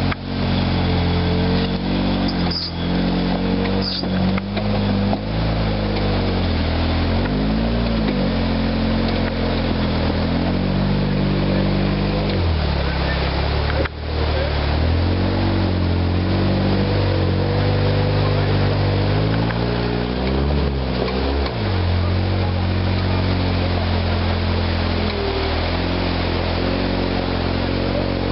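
Rock crawler buggy's engine revving up and down under load as it crawls up a rocky creek bed, over the steady rush of the stream's cascade.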